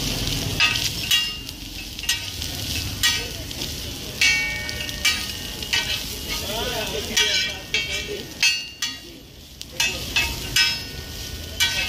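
Two metal spatulas clanging and scraping on a large flat griddle as chowmein is stirred and tossed, with frying sizzle underneath. The clanks ring and come irregularly, several a second at times, with a short lull a little past the middle.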